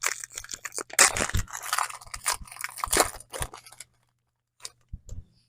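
Foil trading card pack wrapper crinkling and tearing as it is handled and opened, stopping about three-quarters of the way through, followed by a few faint taps.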